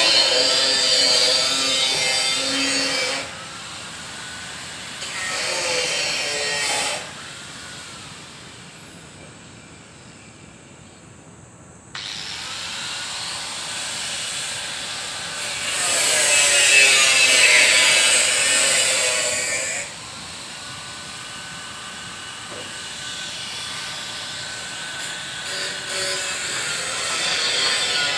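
Power tools working in a series of short stretches that change abruptly every few seconds, one with a faint falling whine.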